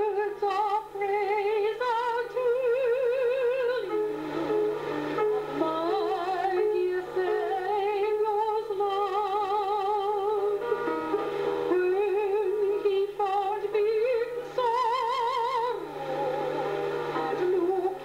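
Background music: a high voice singing slow, held notes with wide vibrato in an operatic style.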